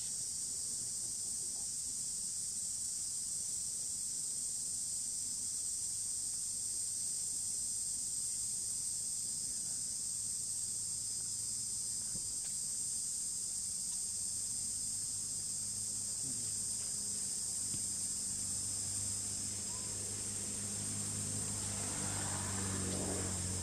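Steady, high-pitched insect chorus droning without a break, with a faint low hum that grows in the last few seconds.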